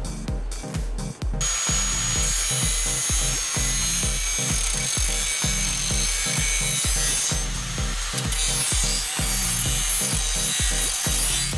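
Handheld DeWalt angle grinder running with its disc against the cut edge of a steel motorcycle fender, a steady hissing whine that starts about a second in and stops near the end. Electronic dance music with a steady kick beat plays under it.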